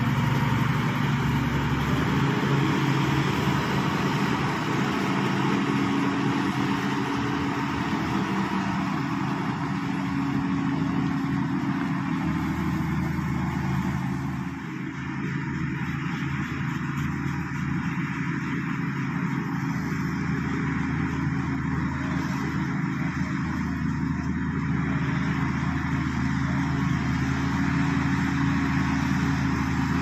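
Shantui SD16 crawler bulldozer's diesel engine running steadily while the dozer pushes wet earth, a continuous low engine drone that drops briefly about halfway through.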